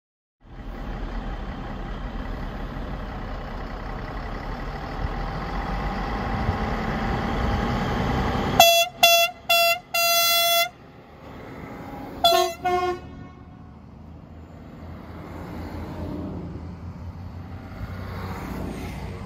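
Diesel railcar running in, its engine and running noise growing louder, then sounding its horn: three short blasts and a longer one, and a second or so later two more short blasts with a lower tone added. Afterwards it rolls past at lower level, the running noise swelling again near the end.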